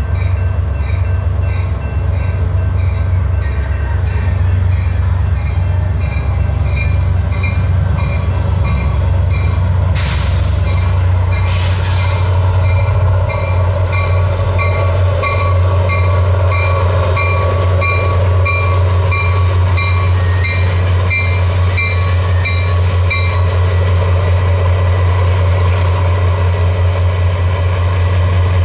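ACE F40PH-3C diesel locomotive pulling a commuter train into a station, its engine a steady low drone. A bell rings about twice a second until near the end. There are two short hisses about ten seconds in, and a thin squeal as the train slows.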